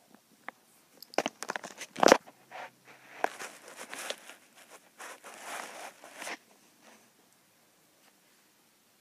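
Scratchy rustling and crackling of a hand and a cat's fur rubbing close to the microphone, with several sharp clicks, the loudest about two seconds in. It stops after about six seconds.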